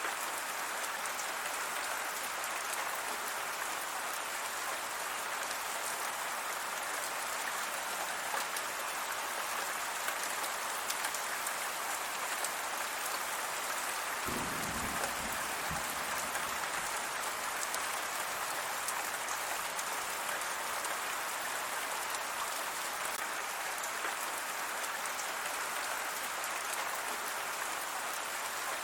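Steady heavy rain, an even hiss of drops falling on a surface, with a brief low rumble about halfway through.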